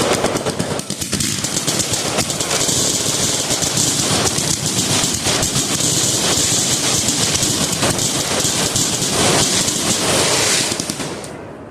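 Firecrackers going off in a rapid, continuous crackle of pops for about eleven seconds, dying away near the end.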